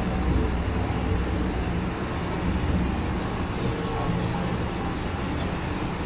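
Steady low rumble of city background noise, even throughout, with no sudden sounds standing out.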